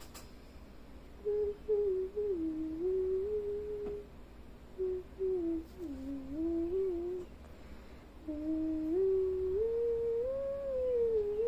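A person humming a tune to themselves in three phrases of held notes that step up and down in pitch, with short pauses between phrases.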